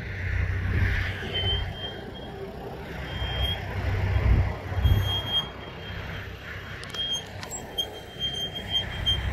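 Land Rover Discovery diesel engine pulling the 4x4 across a steep dirt incline, heard from a distance, with uneven low gusts of wind buffeting the microphone. A thin high whistle comes and goes.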